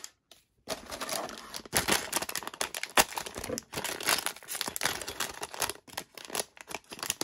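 Foil LEGO minifigure blind bag crinkling and crackling as it is squeezed and pulled open by hand, starting about half a second in.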